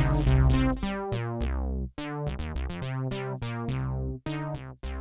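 Oberheim Matrix 1000 synthesizer playing a run of short, plucky notes over held bass notes, sent through an Echolette E51 tape delay running on VHS tape. The level falls about a second in, and the notes cut off briefly a few times.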